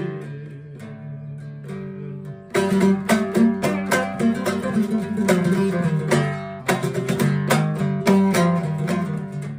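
Long-necked Uyghur lute playing an instrumental passage. It begins with quieter, sparser plucked notes, then breaks into louder, brisk rhythmic strumming about two and a half seconds in.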